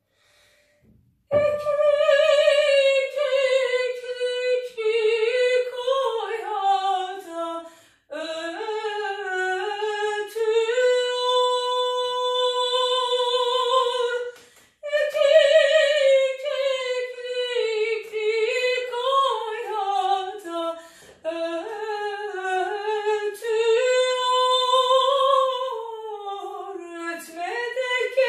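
A woman singing a Turkish folk song unaccompanied in a trained operatic voice, starting about a second in. Ornamented phrases with vibrato and one long held note midway, broken by short pauses for breath.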